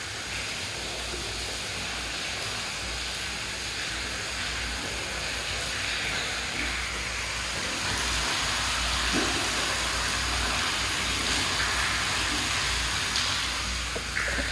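Well water pouring out of a Hudson float valve's outlet into an almost empty plastic storage tank, a steady splashing hiss of several streams falling onto the shallow water at the bottom, a little louder after the middle. The valve is open because the water level in the tank is low, so the tank is filling.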